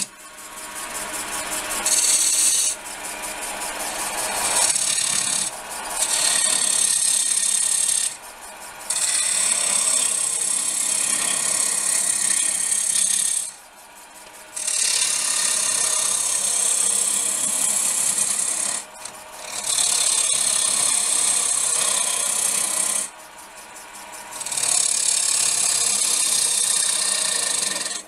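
Wood lathe hollowing a spinning blank of hard, still-wet ash with a narrow 8 mm cutter: a rough scraping hiss of the tool peeling off shavings. It comes in cutting passes of a few seconds each, broken by about half a dozen short pauses where only the lathe's quiet running hum is left.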